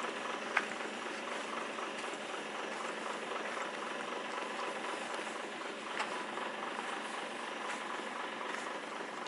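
Tata 4x4 logging truck's diesel engine idling steadily, with two short clicks, about half a second in and again about six seconds in.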